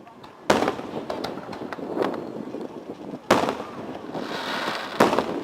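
Aerial display fireworks bursting: three loud booms, about half a second, three seconds and five seconds in, each echoing away, with sharp crackles between them.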